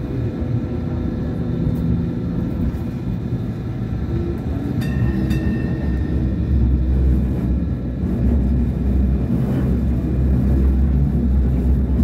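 Hong Kong Light Rail Phase I car running between stops, heard from inside: a steady low rumble of wheels and motors with faint steady tones above it, growing a little louder in the second half. A sharp click comes about five seconds in.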